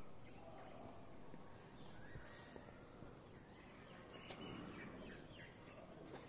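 Faint outdoor ambience with a few short bird chirps.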